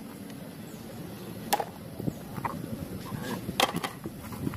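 Mud-coated toy vehicles being picked up and set down in a tray: a few light clacks and knocks, two of them sharper, about a second and a half in and again a couple of seconds later.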